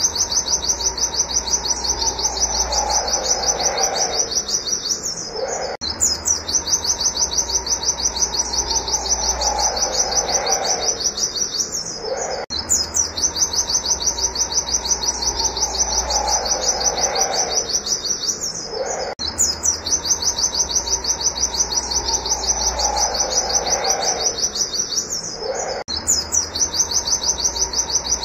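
White-eye (pleci) calling a fast, unbroken run of high 'wit wit' chirps, many per second. The same stretch of about six and a half seconds repeats over and over, each time with a lower sound sliding down beneath the chirps.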